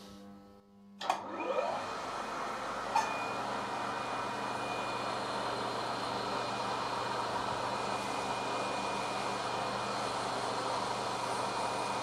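Maho MH400E mill spindle starting about a second in and spinning up with a brief rising tone, then running steadily at its slowest speed, driving a Tapmatic tapping head as the tap is hand-fed into a blind hole. A single sharp click about three seconds in.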